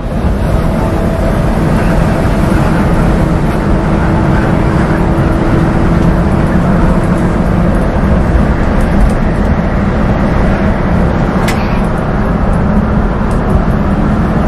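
Intercity bus engine and road noise heard from inside the moving coach: a loud, steady drone with a low hum.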